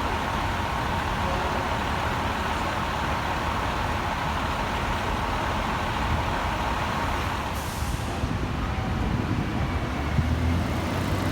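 Fire apparatus diesel engines running steadily, with a short hiss of air brakes about seven and a half seconds in.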